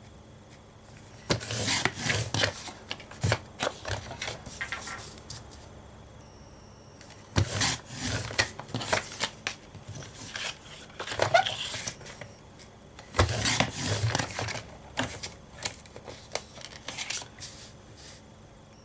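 Sliding paper trimmer cutting cardstock, along with sheets of card being slid, rubbed and shuffled on the trimmer bed and cutting mat. The sounds come in several short bursts of scraping and rustling with brief pauses between them.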